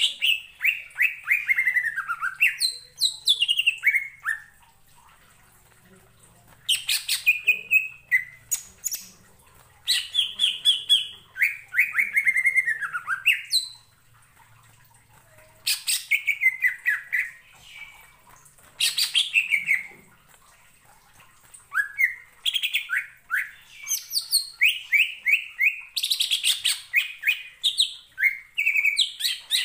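Greater green leafbird (cucak ijo) singing: phrases of rapid notes, many sliding downward in pitch, each phrase a couple of seconds long and set off by short pauses.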